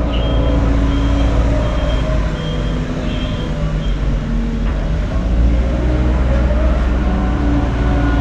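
Heavy construction vehicle's diesel engine running steadily, its pitch drifting slightly under load. A short high beep repeats about every half-second through the first half.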